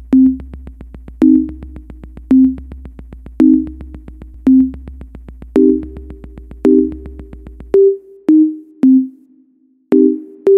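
Electronic theme music: synthesizer notes over a quick ticking drum-machine beat and a low bass. The bass drops out about eight seconds in, there is a brief gap, and then the notes and ticks come back.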